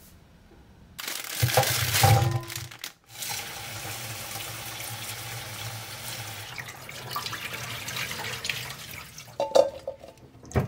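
Kitchen tap running into a stainless steel bowl of okra in the sink: water starts loudly about a second in, then runs steadily. Near the end come a few knocks as hands rub the okra pods in the bowl.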